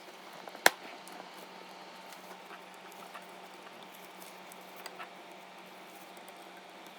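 Small tools and parts handled on a workbench during desoldering: one sharp click under a second in, then a few faint ticks and taps over a steady low hum.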